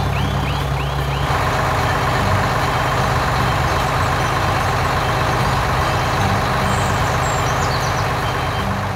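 Cartoon sound effect of a bulldozer's engine running: a steady low rumble under a rough, grinding noise that grows fuller about a second in. A few short high squeaks near the start.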